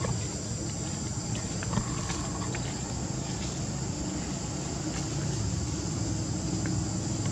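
Outdoor ambience: a steady high-pitched drone of insects over a low steady rumble, with a few faint clicks.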